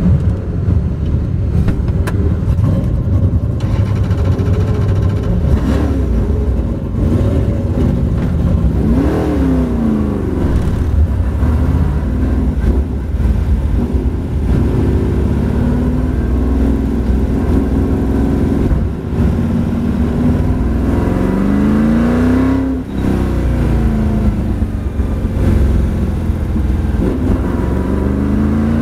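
Sigma prototype race car's engine heard from inside the cockpit, pulling away from standstill at low speed, its revs rising and falling. About three-quarters of the way through, the pitch drops as it shifts up from first to second gear.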